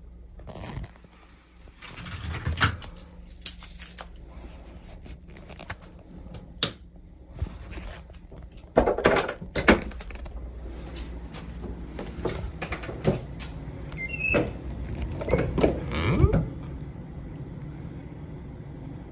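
Scattered knocks, clicks and rustling of things being handled and moved about, with the loudest clusters of knocks around nine to ten seconds in and again around fifteen to sixteen seconds in, over a low steady hum.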